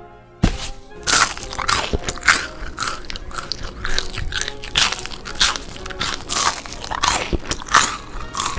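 Crunchy food being bitten and chewed, a crisp crunch about twice a second.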